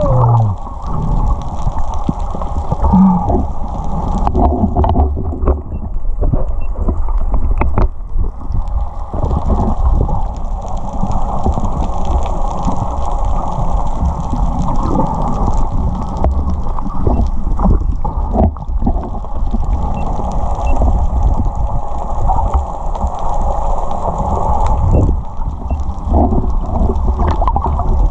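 Muffled underwater noise from a camera submerged in the sea: a steady low rumble with water swishing and gurgling around the housing, and scattered short knocks.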